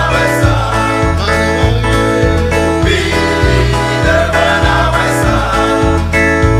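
Men's choir singing a gospel song over a band, with low bass notes changing about twice a second beneath the voices.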